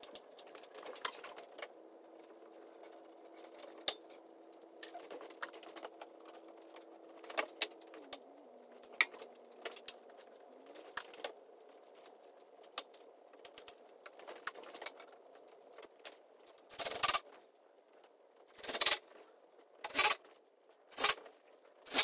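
Quick-release bar clamps clicking as their triggers are pumped to tighten them on a glued-up board. In the last five seconds a cordless drill runs in about five short bursts, driving screws into the glue-up.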